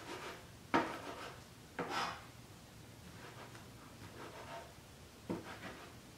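Large kitchen knife chopping cilantro on a cutting board: a few sharp knocks of the blade against the board, two close together in the first two seconds and another after a pause of a few seconds.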